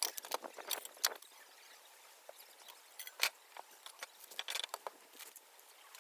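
Wood fire crackling in a fire pit: irregular sharp snaps and pops, one louder crack a little past three seconds in.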